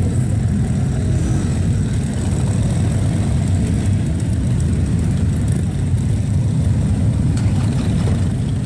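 A pack of big touring motorcycles running at low speed as they roll slowly past in a line. Their engines make a steady low sound with no single rev standing out.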